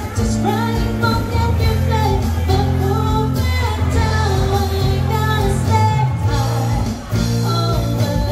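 A woman singing a pop ballad live into a microphone, amplified through a PA speaker, with guitar accompaniment over held low bass notes.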